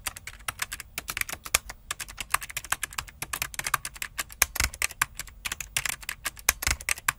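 Typing sound effect: a fast, uneven run of key clicks that goes with on-screen text being typed out.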